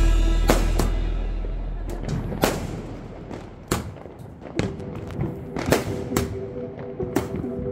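Asok Fireworks Euphoria 120-shot multi-colour cake firing, with irregular sharp bangs of shots and bursts. Background music plays under them, opening on a long fading bass note, with held tones from about halfway on.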